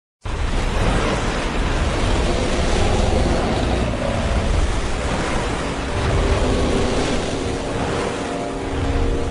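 Loud, heavy rush of crashing, churning water with a deep rumble underneath, starting abruptly just after the start; a few steady low tones come in near the end.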